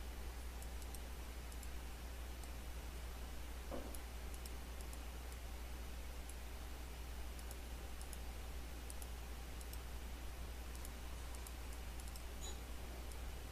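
Faint, irregular computer mouse clicks over a steady low hum and hiss.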